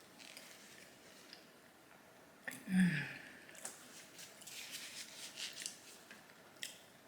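Close-miked chewing with wet lip smacks and mouth clicks as the last bite of a diner breakfast is eaten. A single short, low vocal sound about three seconds in is the loudest moment.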